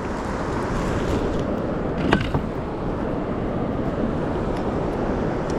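Steady rushing wind noise on the microphone, with a single sharp tap about two seconds in.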